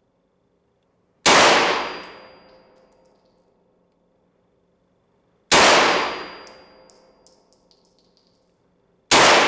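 Three single shots from a Chiappa CBR-9 Black Rhino 9 mm Luger semi-automatic fired pistol-style, each a sharp crack about four seconds apart. Each shot rings on in the indoor range's echo for a second or two before dying away.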